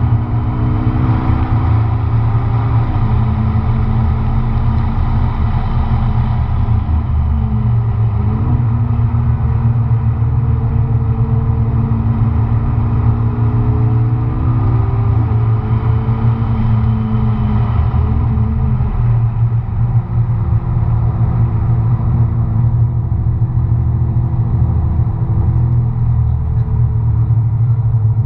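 McLaren MP4-12C's twin-turbo V8, heard from inside the cabin while it is driven hard on track. The engine note repeatedly climbs in pitch and then drops sharply at each gear change, over a steady low drone.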